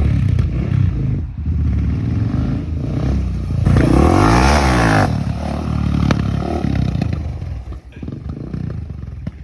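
Motor vehicle engines running, with one vehicle driving close past about four seconds in, louder as it goes by.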